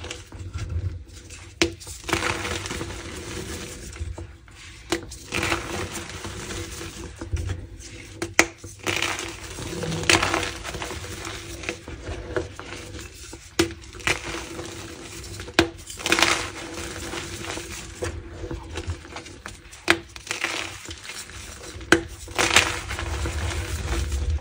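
Crunchy slices of gym chalk being crushed: sharp snapping cracks every second or two, with gritty crumbling between them.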